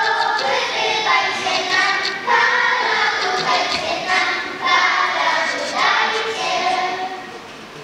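Children's choir singing a Christmas carol in several voices, phrase after phrase, the last phrase dying away near the end.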